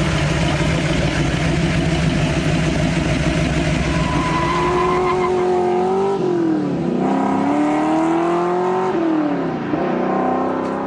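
Ford Mustang GT500 V8 engine running loud and steady, then revving up. Its note climbs in pitch, drops sharply and climbs again twice, with a third climb starting near the end.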